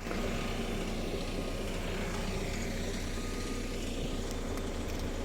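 Excavator engine running steadily with an even low hum.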